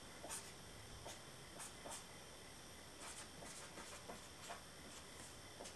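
Faint, irregular scratches of a pen drawing on paper, short strokes coming every half second or so over a low hiss.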